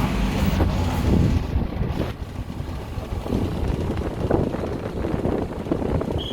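Air conditioner outdoor units running: for about the first two seconds a noisy Daikin R36NUY14 gives a loud steady low hum, then it cuts to a Panasonic CU-PN18UKJ outdoor unit running with a quieter, rougher low rumble.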